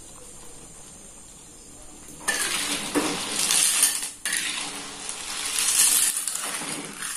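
A metal spoon or ladle stirring and scraping around a pot of simmering snail and taro curry, starting about two seconds in, in two long bouts with a short pause between.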